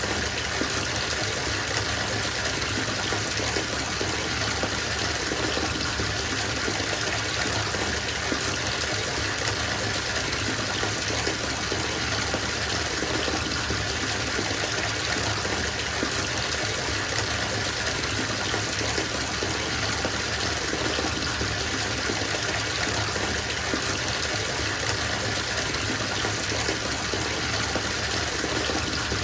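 Bathtub filling from the tap: a steady, unbroken gush of water pouring into the tub.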